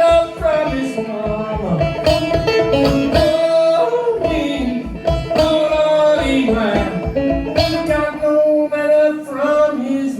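Clawhammer banjo played with singing, an old-time song performed live: quick plucked banjo strokes under a voice holding and sliding between notes.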